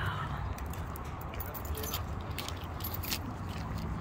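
Light, irregular jingling and clicking of small metal objects, over a low steady rumble.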